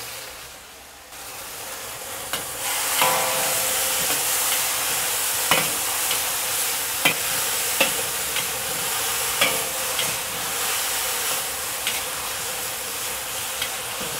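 Chicken and green beans stir-frying in a wok in their cornstarch-thickened sauce: a steady sizzle, with sharp clicks and scrapes of the spatula against the wok every second or so. The sizzle is quieter for the first couple of seconds, then grows louder.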